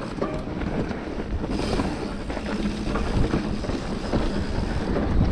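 Enduro motorcycle engine running, with wind buffeting the microphone.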